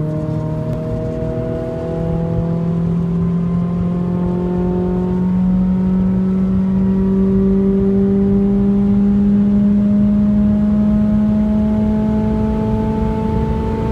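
Renault Clio RS engine pulling steadily under acceleration at motorway speed, its note rising slowly and evenly as the revs climb in one gear, over a low rumble of road noise.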